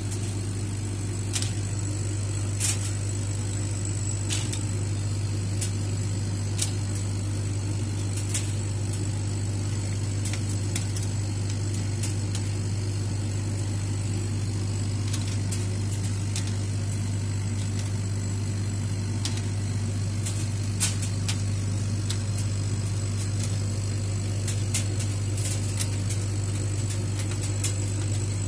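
Steady low machine hum from a laser cutter's running equipment, with light scattered clicks of thin plywood ornaments being moved on its metal honeycomb bed.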